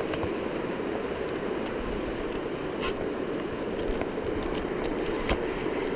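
Steady rushing of a fast river running over a rapid, with irregular clicks, scrapes and rustling from a spinning reel being wound and handled close to the microphone, a sharper click about three seconds in and another near the end.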